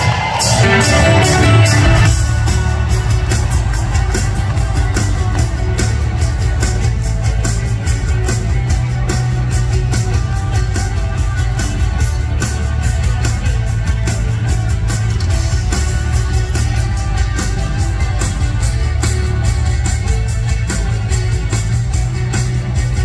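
Live rock band in an arena, electric guitars, bass and drum kit playing an upbeat song with a steady beat. Crowd cheering carries over the first two seconds.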